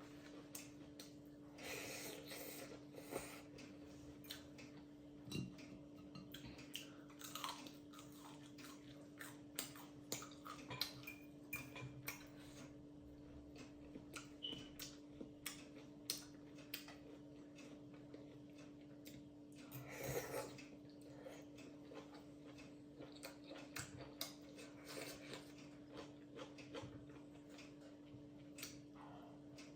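A person eating close to the microphone: irregular wet chewing and biting clicks, with a couple of longer slurps, over a faint steady hum.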